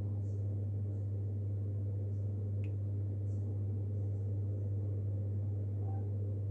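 A steady low hum with faint room noise, and one faint click about two and a half seconds in.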